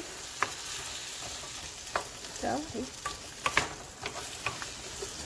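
Diced potatoes, onion and garlic sizzling in oil in a frying pan while a wooden spoon stirs them, with scattered clicks and scrapes of the spoon against the pan.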